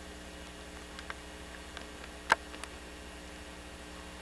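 Steady low hum with a few scattered sharp clicks; the loudest click comes a little past two seconds in.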